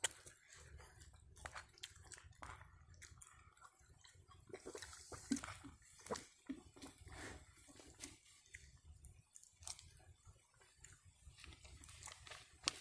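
Faint close-up chewing of a mouthful of rice and vegetables, with scattered small clicks and soft crunches.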